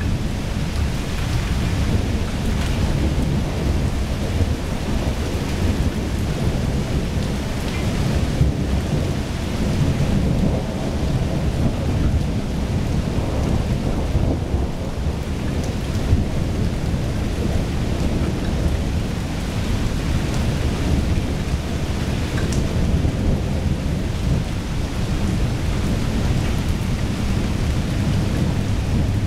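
Thunderstorm: thunder rumbling almost without a break over steady rain, with a few faint drip-like ticks.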